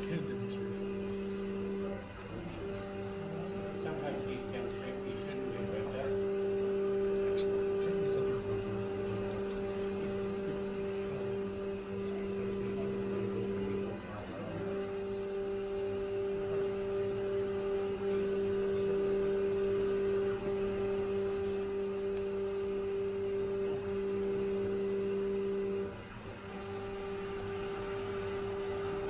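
Small desktop CNC mill running its spindle in a steady whine while it cuts plastic, on the final cut-out pass around a part left without holding tabs. The whine dips briefly three times, about twelve seconds apart.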